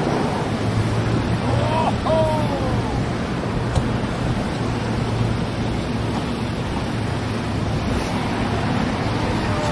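Steady rush of wind and road noise from a moving car, with wind buffeting the microphone over a low, even engine and tyre hum.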